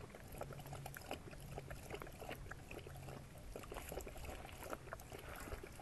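Husky lapping water from a collapsible bowl: a run of quick, irregular wet laps and splashes.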